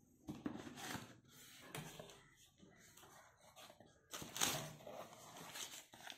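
Cardboard shoebox lid and paper rustling and scraping as the box is opened and the tissue wrapping and a paper invoice inside are handled, in irregular bursts, the loudest about four and a half seconds in.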